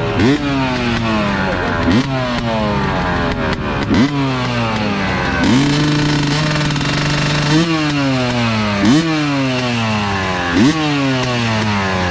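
2019 Yamaha YZ250X single-cylinder two-stroke dirt bike engine, freshly rebuilt top end, being revved in repeated throttle blips. Each blip rises sharply and falls back to idle, every second and a half to two seconds. Around the middle the engine is held steady at higher revs for a couple of seconds.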